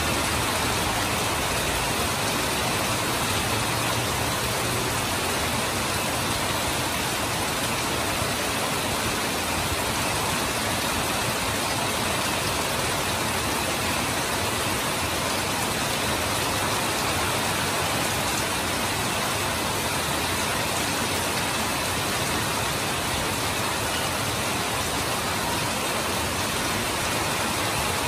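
Heavy rain falling steadily, with water streaming off a roof edge: an even, unbroken hiss.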